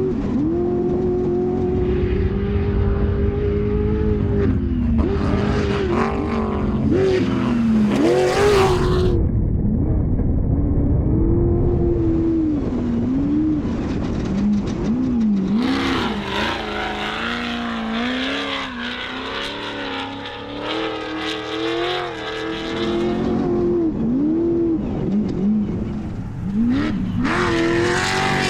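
Off-road race car engine running hard, its revs rising and falling again and again in quick swells as the throttle is worked.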